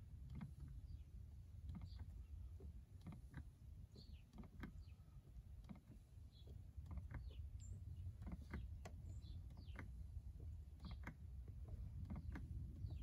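Hand pump on a quart bottle of gear lube clicking and creaking with each stroke, about one or two clicks a second, as gear oil is pushed in through the bottom drain hole of an outboard's lower unit to fill it, over a low steady rumble.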